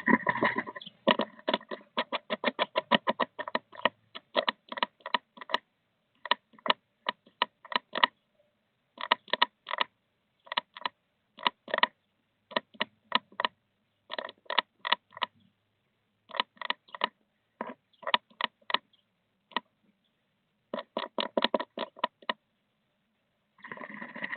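Blue tit inside a wooden nest box tapping and pecking: quick series of sharp taps, about eight a second, in bursts of a few strokes with short pauses between them, close and dry in the small box.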